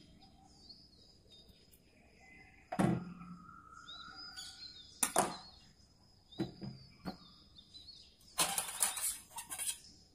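Small knife scraping the peel off a bottle gourd over a steel plate, with a few separate knocks and clinks and a rasping scrape lasting over a second near the end. Small birds chirp in the background.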